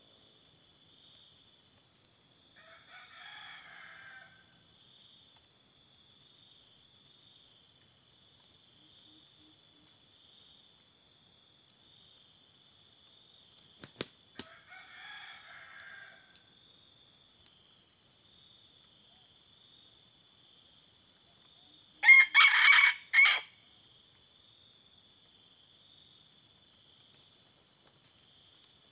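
Junglefowl rooster crowing: one loud, close crow about three-quarters of the way through, with fainter, more distant crows roughly every twelve seconds. A steady pulsing insect chorus runs underneath, and two sharp clicks come about halfway.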